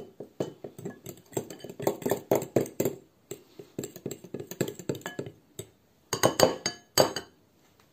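Metal spoon and fork stirring and mashing dry cocoa powder in a glass bowl, a quick run of scraping clinks against the glass. The clinking pauses about five and a half seconds in, then comes back in two short bursts.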